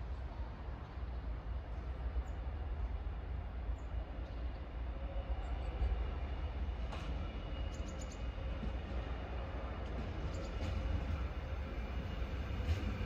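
DB class 628 diesel multiple unit approaching along the track, its engine and wheels growing gradually louder as it nears, with a few faint clicks about halfway through.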